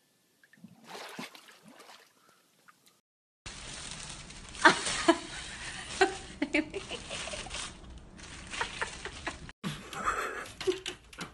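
Faint water sloshing for the first few seconds. Then a plastic snack bag crinkles and rustles loudly with sharp crackles for about six seconds as a cat struggles with its head inside it.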